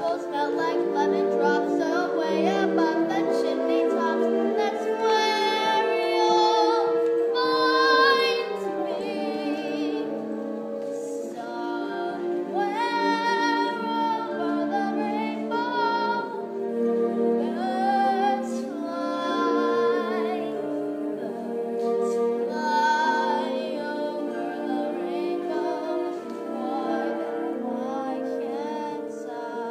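Music: a high voice singing slow, held notes with vibrato over sustained accompaniment.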